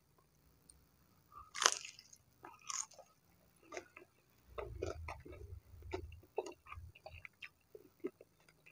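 A person chewing and biting battered fried tempeh close to the microphone: a run of short crunches and wet mouth clicks, the loudest crunch about a second and a half in.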